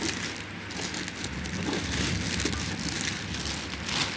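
Plastic packaging rustling and crinkling as it is handled while a boxed sewing machine is unpacked, an uneven crackling hiss with louder crinkles near the start and just before the end.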